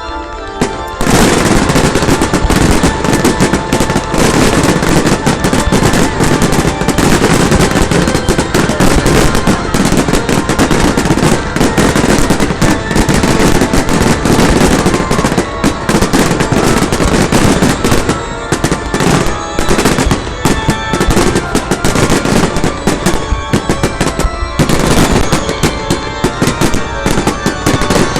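A fireworks barrage: a dense, rapid run of crackling bangs that starts about a second in and keeps going, with music playing underneath.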